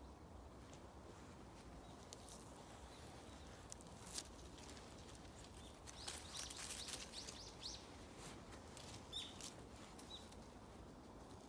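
Near silence: faint outdoor ambience with scattered light ticks, most of them between six and seven seconds in, and a short bird chirp about nine seconds in.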